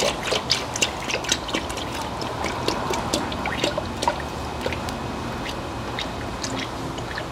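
Engine coolant being poured from a jug into a radiator fill funnel: a steady trickling pour with many small irregular splashes.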